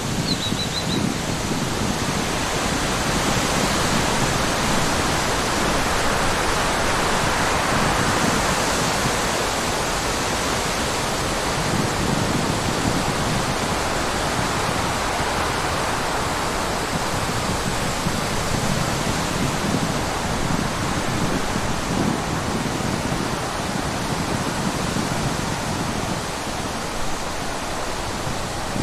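Steady rushing of flowing water, like a stream or small waterfall, an even noise with no rhythm. A brief high chirp sounds at the very start.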